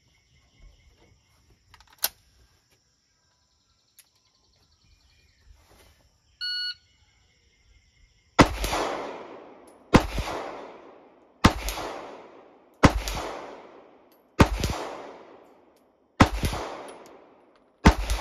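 Seven gunshots from a shoulder-fired gun, about a second and a half apart, starting about eight seconds in. Each crack trails off in a long echo that fades away before the next shot. A short electronic beep sounds a couple of seconds before the first shot.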